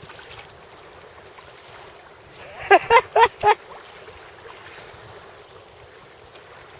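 Steady wind and sea noise on open water, with wind buffeting the microphone. About three seconds in come four short, loud cries in quick succession, each bending in pitch.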